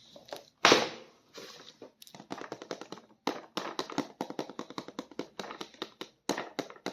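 Hands handling plastic toy packaging: a sharp rustle about a second in, then a long run of quick, irregular plastic clicks and taps.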